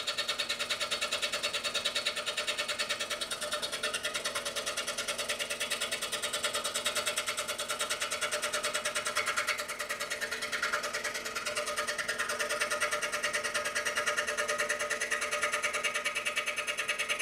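Scroll saw with a fine number two blade running and cutting through polycarbonate sheet: a steady, fast mechanical chatter.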